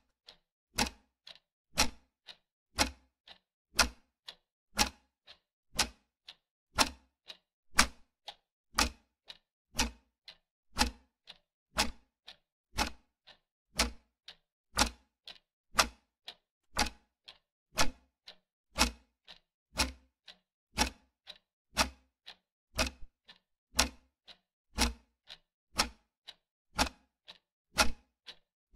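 Clock-ticking sound effect for a one-minute countdown timer: a steady tick-tock, a louder tick each second with a softer one between.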